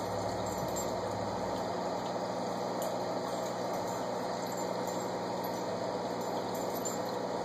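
Steady electric hum with an even rush of moving water, as from an aquarium's filter pump running.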